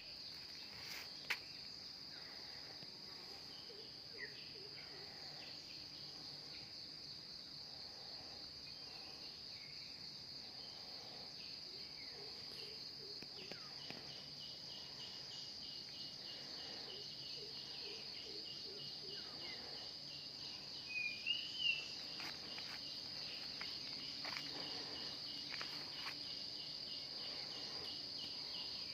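Insect chorus: a steady, high-pitched continuous trill, joined about halfway through by a second, rapidly pulsing insect call a little lower in pitch. A few short rising chirps come near the end.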